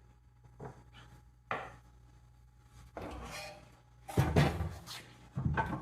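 Hand tools and metal engine parts being handled: a few light clicks, then scraping and louder rattling clatter from about four seconds in, as fasteners are worked loose.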